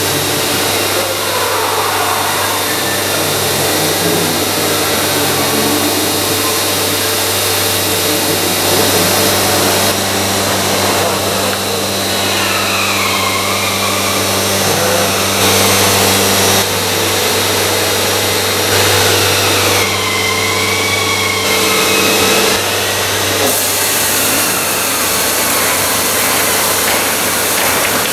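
Stahl KD78-4KTL paper folding machine running: a steady mechanical whir and hiss with a constant low hum.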